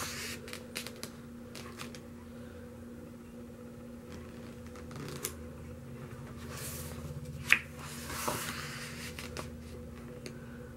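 Photobook pages being handled and turned by hand: paper rustling and swishing, with scattered light taps and one sharp tap about seven and a half seconds in.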